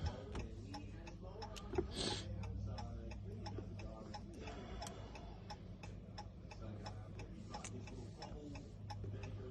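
Steady, rapid ticking over a low, even hum.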